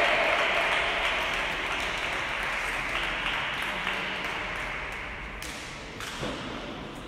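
Spectators applauding after a point in a table tennis match, the clapping fading away gradually.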